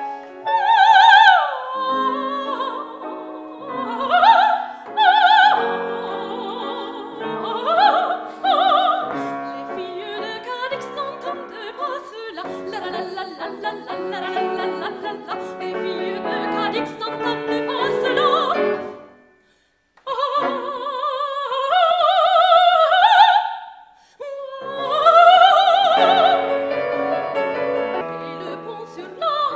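Operatic soprano singing with wide vibrato over piano accompaniment. The music stops for about a second roughly two-thirds of the way through, then starts again.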